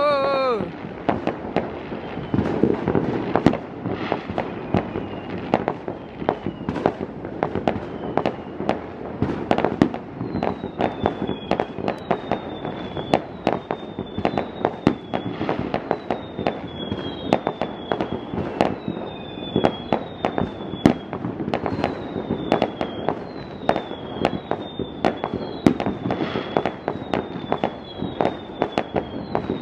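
Many fireworks going off over the city at once, a dense, unbroken run of bangs and crackles. A brief wavering pitched tone sounds right at the start. From about a third of the way in, a high short falling whistle repeats roughly once a second.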